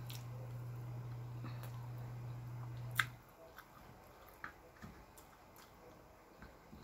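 Close-up chewing and crunching of crisp-fried small whole fish, heads and bones included, with scattered short crunches and clicks, the sharpest about three seconds in. A steady low hum runs underneath and stops about three seconds in.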